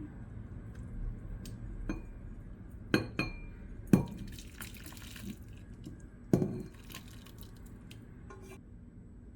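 Dishes and glassware being handled: several clinks and knocks, a few with a short ringing tail, the loudest about four seconds in.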